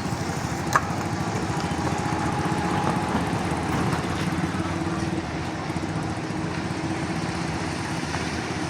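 Heavy truck's diesel engine running steadily, with one sharp click about a second in.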